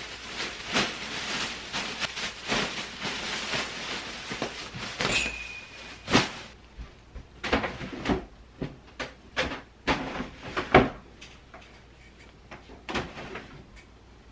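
Thin plastic shopping bag crinkling as clothes are stuffed into it, then a brief squeak and scattered knocks and thuds as dresser drawers are opened and handled, the loudest knock a little after ten seconds.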